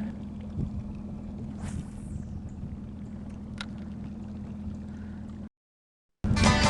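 Steady low hum on a fishing boat, with a faint swish and a short click. It cuts out suddenly into silence, and near the end banjo bluegrass music starts.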